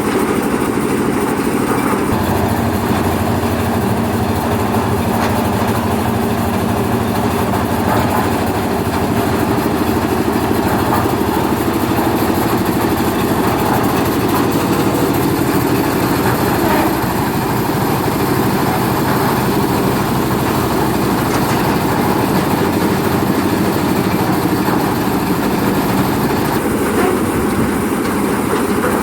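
Concrete mixer machine's air-cooled diesel engine running steadily under load, its note shifting about two seconds in and again near the end.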